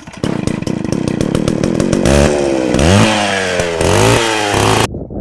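An engine pulsing fast at first, then revving up and down several times before cutting off abruptly.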